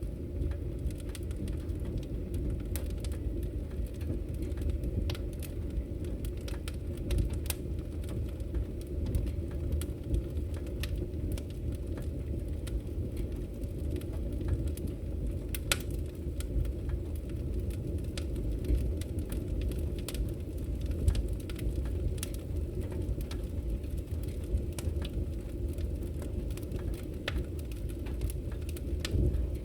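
Firewood burning, with a steady low rumble under irregular crackles and pops, a few of them sharper snaps.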